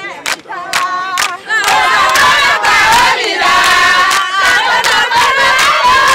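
A crowd of women singing and chanting together over steady rhythmic hand-clapping, about two to three claps a second; the singing swells loud about a second and a half in.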